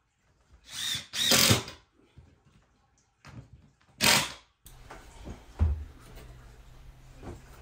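Cordless drill driving screws through a wooden French cleat into the wall studs, in four short runs of about half a second each, the first two the loudest. A thump follows a little after the halfway point.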